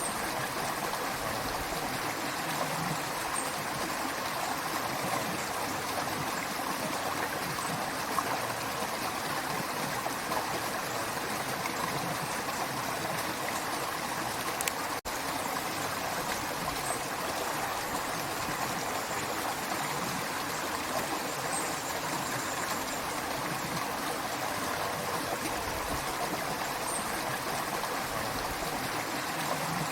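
Creek water running steadily over rocks, an even rushing and babbling, broken by a split-second gap about halfway through.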